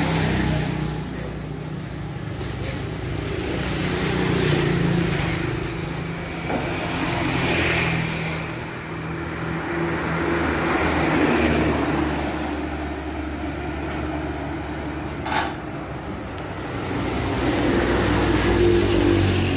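Road traffic going by: motorbikes and other motor vehicles passing one after another, the sound swelling and fading with each pass. A single sharp click about fifteen seconds in.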